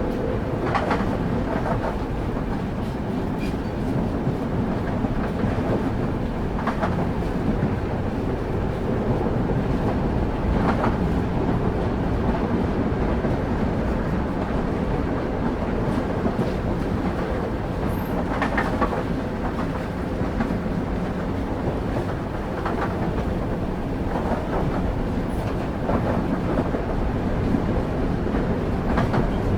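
Railway wheels running on the track: a steady low rumble with an occasional clack every few seconds as the wheels pass rail joints.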